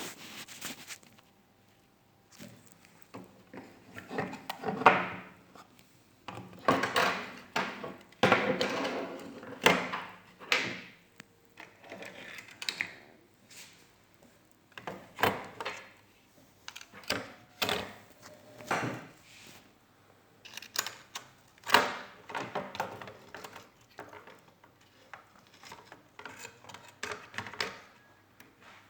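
Irregular knocks, clicks and clatter of parts and tools being handled while working on a microwave oven, with a few sharper knocks standing out, the loudest about five and twenty-two seconds in.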